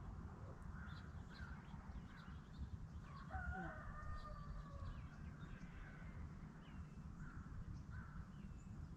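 A rooster crowing once, a long call about three seconds in, with small birds chirping now and then around it over a low rumble.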